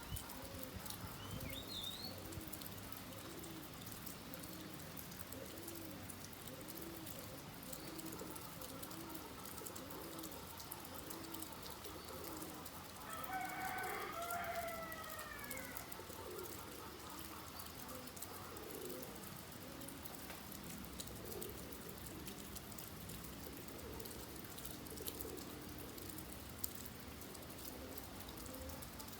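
Steady rain hiss with birds calling: a run of low, evenly repeated calls about once a second, a louder drawn-out call about halfway through, and a few high chirps near the start.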